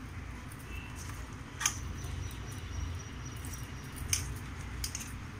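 Hands rubbing wet spice marinade into fish pieces in a steel pan, a soft squishing, with a few sharp light clicks over a steady low hum.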